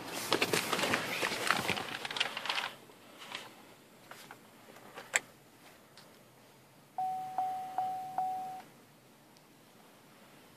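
Rustling and clattering as someone settles into a car seat, a few light clicks, then the Chevrolet Volt's in-car chime sounding four quick beeps at one pitch about seven seconds in.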